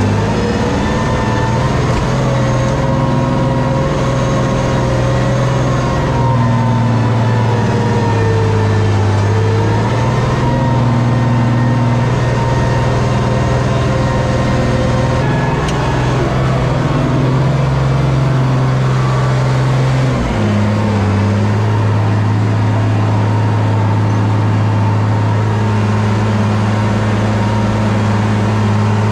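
International Harvester 1466 tractor's turbocharged six-cylinder diesel running steadily under load while pulling a moldboard plow, heard from inside its open-windowed cab. The engine note shifts slightly a few times.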